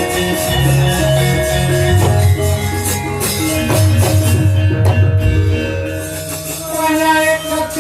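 Javanese gamelan playing: steady ringing bronze metallophone and gong tones over a drum, with a bright metallic jingling clatter running through it.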